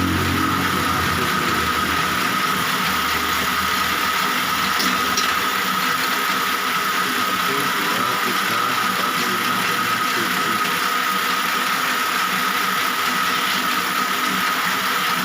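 Electric motor of a satay skewer-making machine running steadily, with a constant high whine.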